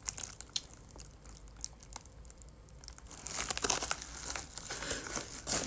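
Package wrapping crinkling and rustling as it is handled and torn open by hand. It is faint at first, with a few light handling clicks, and turns to steady loud crinkling about three seconds in.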